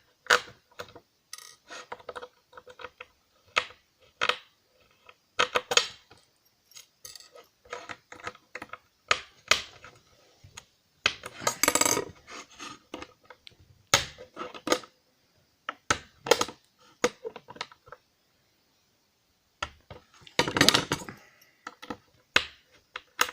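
Precision screwdriver and small steel screws clicking and clinking against a laptop hard drive's metal casing as the screws are undone and set down: irregular sharp ticks, with a louder clatter about halfway through and again near the end.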